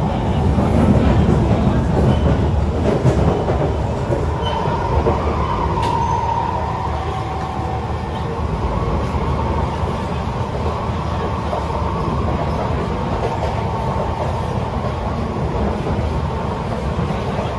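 Kawasaki C151 metro train running between stations, heard from inside the car: a steady rumble of wheels on rail with a faint high whine that swells briefly about five seconds in.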